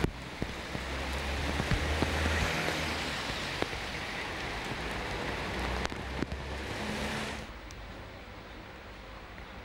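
Steady hiss of rain falling, over a low rumble of street traffic, with a few sharp taps. The rain hiss cuts off about seven seconds in, leaving a quieter street background.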